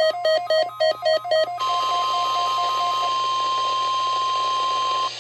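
A quick run of electronic beeps, about four a second, then the NOAA Weather Radio 1050 Hz warning alarm tone, one steady pitch held for about three and a half seconds, heard over a radio broadcast during the required weekly test of the alarm.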